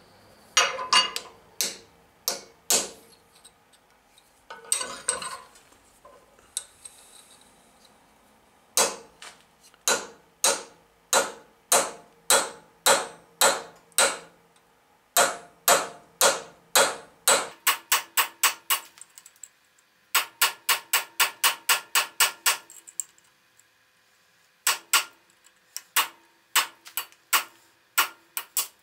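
Hand hammer driving a cape chisel along a mild steel bar held in a vise: sharp metallic blows, each with a short ring, a few scattered at first and then in steady runs of about two to three a second with brief pauses between. This is the first light pass of a keyway cut, before the chisel's corners have bitten into the metal.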